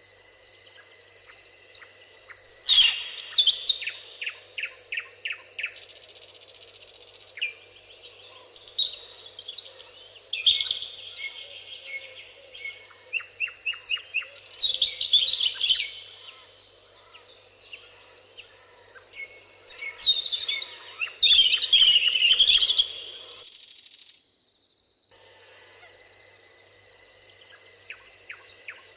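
Several songbirds singing in a meadow chorus: overlapping whistled phrases, chirps and runs of quick repeated notes, with the loudest phrases about 3, 15 and 20–22 seconds in. A steady thin high tone runs beneath the song.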